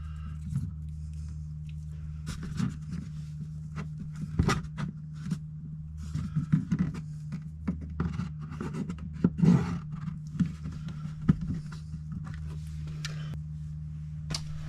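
Scattered knocks, taps and scrapes of hands handling tools and parts, over a steady low hum.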